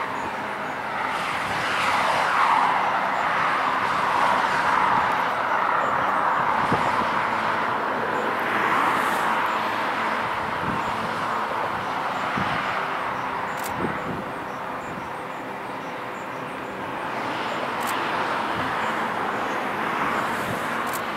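Road traffic and a landing jet airliner: cars swell and fade as they pass, over the rumble and whine of a four-engine Airbus A340 on final approach, which grows a little louder near the end.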